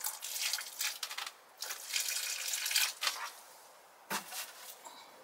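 Water pouring from a plastic watering can onto an expanded soil brick in a pot, in two pours of about a second and a half each, followed by a brief bump near the end.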